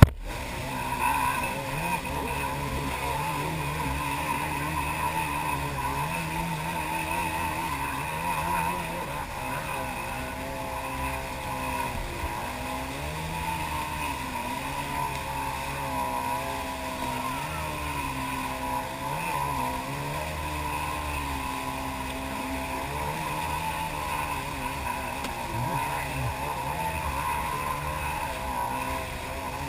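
Jet ski engine running at speed, its pitch rising and falling over and over as the craft crosses the boat's wake.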